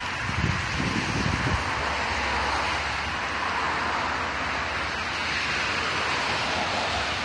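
Steady wind hiss, with low buffeting on the microphone during the first second and a half.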